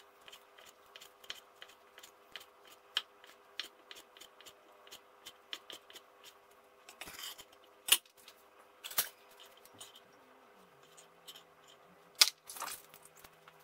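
Chinese cleaver slicing pressed dried tofu on a wooden cutting board: quick knife taps on the board, about three to four a second, for the first six seconds or so. Then a few louder knocks and short scrapes as the strips are gathered, with a sharp knock near the end as they go into a ceramic bowl.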